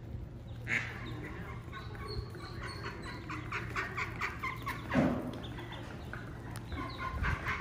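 Ducklings peeping, a rapid run of short, high cheeps, as the brood walks behind their mother duck. A single louder burst comes about five seconds in.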